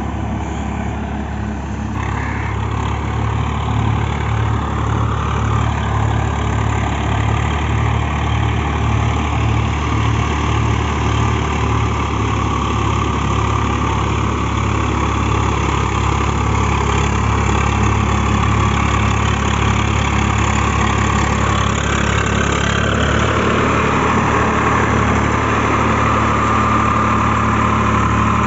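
Swaraj 744 FE tractor's three-cylinder diesel engine running steadily as it pulls a rotavator through flooded paddy mud. It grows gradually louder as the tractor approaches.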